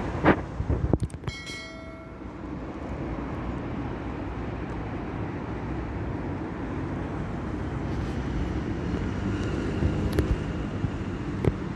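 Steady vehicle and traffic noise on a city street, with a few sharp knocks and a brief metallic ringing tone about a second in.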